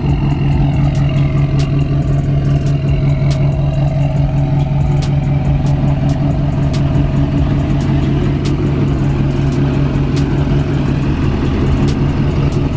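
Lifted diesel pickup engine idling: a steady, even low hum with scattered sharp ticks over it.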